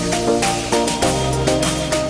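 Background music with a steady electronic beat and a quick-moving melody.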